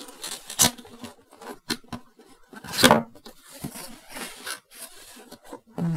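Cardboard box being opened by hand: the tuck-in lid tab is pulled from its slot and the flaps and insert rustle and scrape, with sharp clicks and one louder cardboard scrape about three seconds in.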